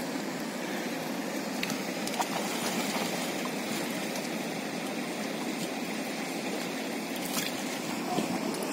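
Steady rush of a monsoon-swollen river, with a few faint clicks.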